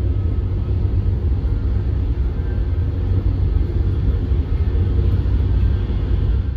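Chinese high-speed bullet train running at speed, heard inside the carriage as a steady low rumble of the running gear and travel noise.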